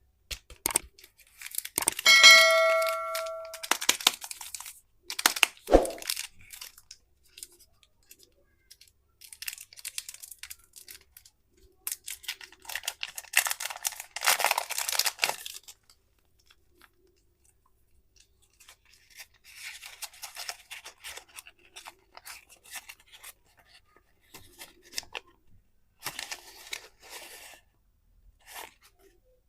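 Plastic candy wrappers being crinkled and torn open in several spells of crackling, with sharp clicks near the start and a short ringing ding about two seconds in.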